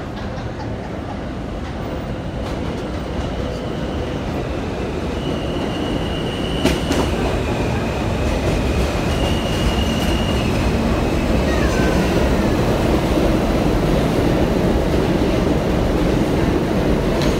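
New York City subway train pulling into the station, its rumble growing steadily louder as it comes alongside. High metal squeals ring out for several seconds in the first half, with a sharp click and a short falling whine around the middle as it slows.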